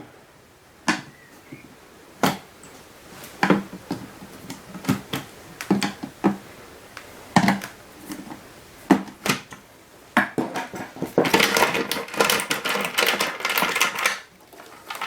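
Handling of an unlocked plastic electronics enclosure: separate clicks and knocks of the case and its parts being moved, then a few seconds of dense rattling and clattering near the end.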